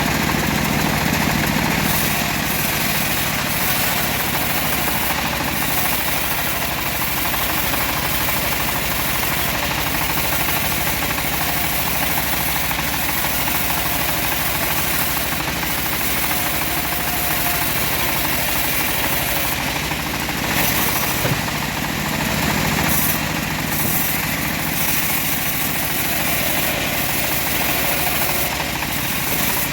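Homemade bandsaw sawmill running steadily, its engine and blade sawing a teak log into beams.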